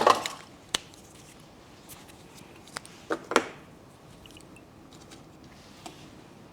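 Handling noises from a perfume box and bottle being opened: a few sharp clicks and two short rustling bursts, the largest about three seconds in.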